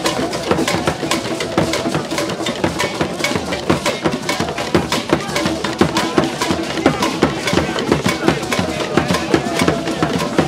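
Traditional Ghanaian procession drumming: hand-held drums and a large rope-laced barrel drum beaten in a fast, continuous rhythm, with voices over it.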